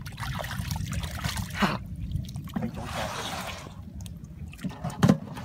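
Shallow muddy water sloshing and splashing as hands and a leg move through it, groping for fish. A short sharp thump about five seconds in is the loudest sound.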